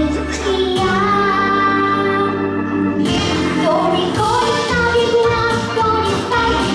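A young girl singing a Polish-language pop song into a microphone over instrumental accompaniment, with held notes that slide in pitch.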